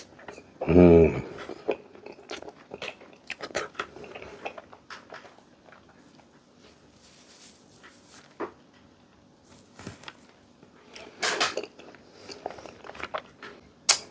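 Close-up chewing and crunching of crisp raw fruit coated in a thick bagoong (shrimp-paste) sauce, with wet mouth clicks and smacks and a short hummed "mmm" about a second in. Near the end, sauce being sucked off the fingers.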